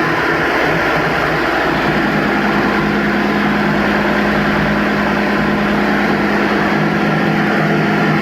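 Tugboat's main diesel engine running steadily during a running test, a loud, even drone that holds one pitch throughout.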